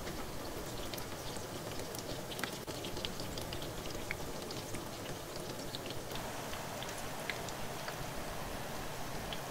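Corned beef lumpia (spring rolls) frying in hot oil in a frying pan: a steady sizzle with many small crackling pops.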